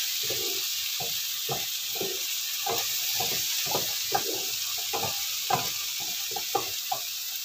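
Cucumber and baby corn stir-frying in a sauce in a frying pan: a steady sizzle, with a wooden spatula scraping and knocking against the pan about twice a second.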